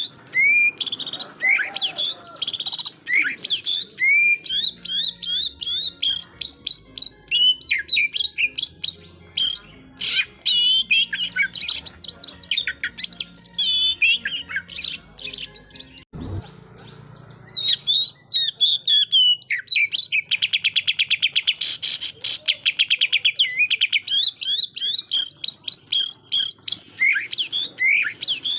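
Oriental magpie-robin (kacer) singing a loud, varied song of quick whistles and chirps. About two-thirds of the way through it lets off a fast run of rapidly repeated notes, the 'tembakan' (shooting) burst. About halfway through there is a single click and a pause of a second or so.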